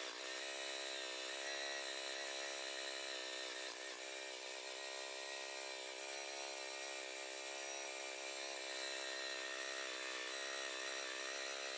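A machine's motor running steadily at an even pitch, faint.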